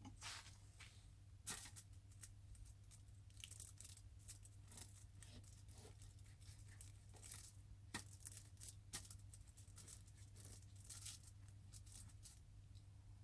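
Faint rustling and crinkling with scattered light clicks, the sound of things being handled close by, over a low steady hum.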